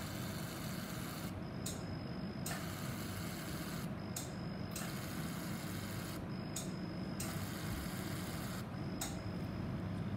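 Fractional CO2 laser handpiece firing on skin in short bursts of rapid ticking, one burst every two to three seconds, over the steady low hum of the laser unit.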